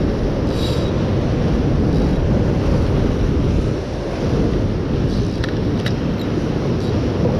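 Wind buffeting the microphone over surf breaking and washing on the rocks below: a loud, steady rumbling noise that dips briefly about halfway through. A few faint clicks near the end.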